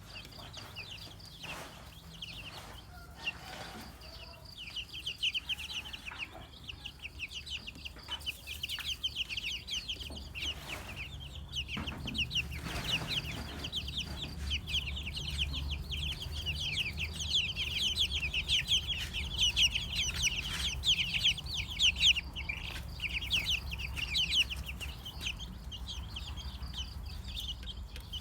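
A brood of chicks peeping, many short high chirps overlapping, thickest through the middle of the stretch, over a steady low hum.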